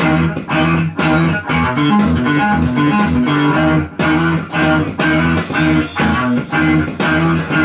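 Stratocaster-style electric guitar strummed in a steady rhythm, about two chord strokes a second.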